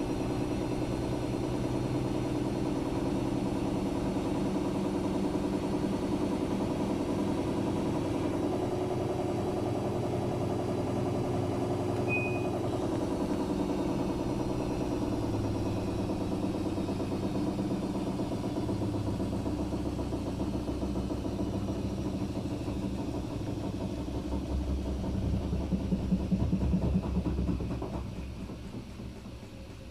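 Daewoo DWD-FT1013 front-loading washing machine spinning at high speed in test mode with an unbalanced load: a steady motor and drum hum. About 25 seconds in a heavier low rumble swells up, then the spin dies away near the end.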